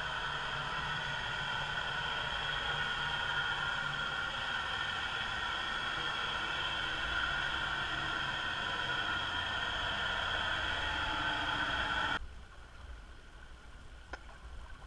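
Underwater noise of the passing freighter CSL Laurentien: a steady, grinding hiss over a low hum, which the uploader puts down to a bad bearing. It cuts off suddenly near the end, leaving a quieter hiss with a couple of faint ticks.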